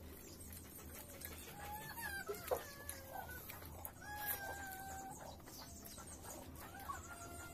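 Three drawn-out, pitched animal calls, each about a second long, over faint clicks and smacking of eating by hand.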